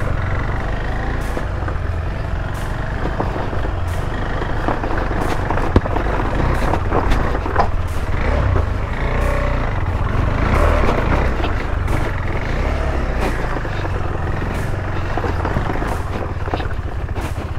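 KTM 390 Adventure's single-cylinder engine running at low revs on a rough dirt trail, a steady low rumble with scattered clicks and knocks from the bike moving over the track.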